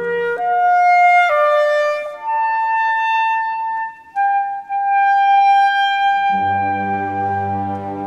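Solo clarinet playing a phrase of a few notes that climbs and then settles into two long held notes. About six seconds in, low sustained orchestral chords enter beneath it.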